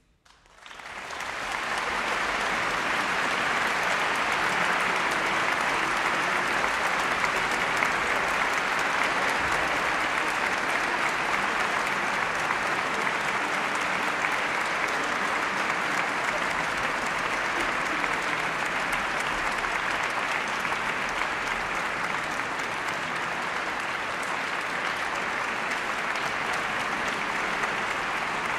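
Concert audience applauding: the clapping swells within the first two seconds and then holds steady.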